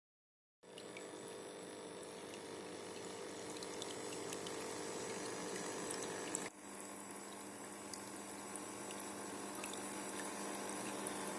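Steady running water from a small pump-fed terrarium waterfall, trickling and splashing. It starts about half a second in and breaks off briefly about halfway through before resuming.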